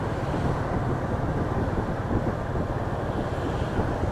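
Motorbike riding noise picked up by a small action camera: wind buffeting the microphone over a steady low engine and road rumble, running evenly without a break.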